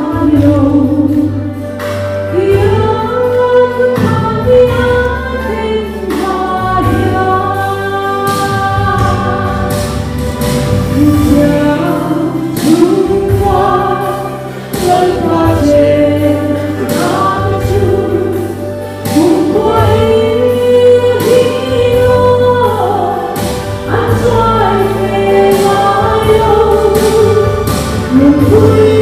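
Gospel song: a choir singing a melody over an instrumental backing with a steady bass line and beat.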